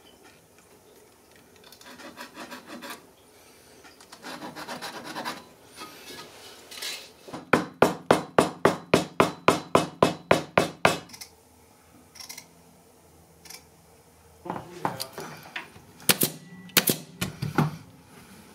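Upholstery tack hammer tapping tacks into a wooden chair frame to fix jute webbing: a quick, even run of sharp taps, about five a second, for some three seconds, with a few more taps later. Before it, rubbing and scraping of the webbing being handled and marked.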